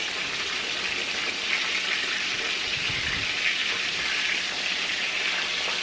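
Panko-breaded cod fillets frying in hot oil in a cast-iron skillet: a steady sizzling hiss of the oil, with a few low knocks about three seconds in.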